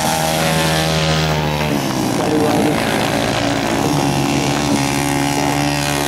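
Speedway motorcycles racing on an ice track, their single-cylinder engines running hard. The engine pitch drops and rises as the riders throttle through the turn, most clearly about two seconds in.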